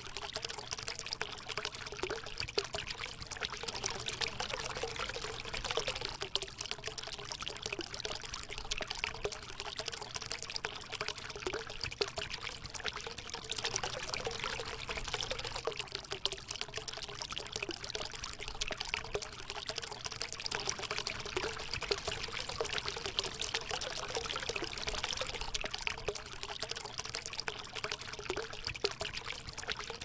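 Steady stream of water pouring from a hollow log spout and splashing into a still pool below.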